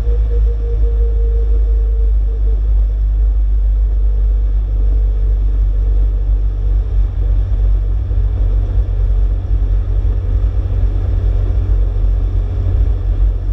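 Ford Escort Mexico cruising at road speed, heard from a bonnet-mounted camera: a steady low rumble of wind buffeting the microphone together with engine and road noise.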